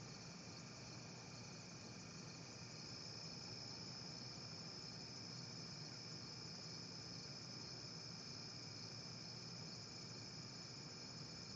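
Steady night chorus of crickets, a continuous high trill, with a faint low hum underneath.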